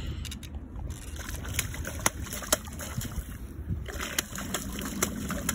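Low rumble of wind on the microphone, with scattered sharp clicks and knocks.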